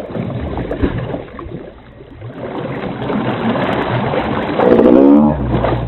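Water splashing and sloshing as a person thrashes about in river water, with a short vocal cry about five seconds in.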